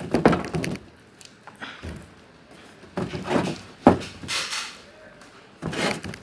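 Sticky homemade slime being squished and kneaded by hand in a bowl: several short wet bursts, with a sharper knock against the bowl about four seconds in.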